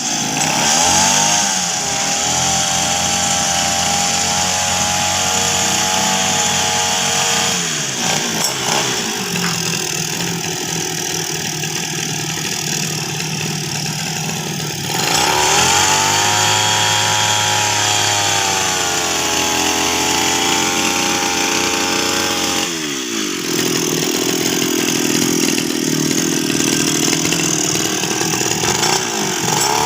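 Small two-stroke brush cutter engine running, its pitch sagging and recovering several times, most deeply about halfway through.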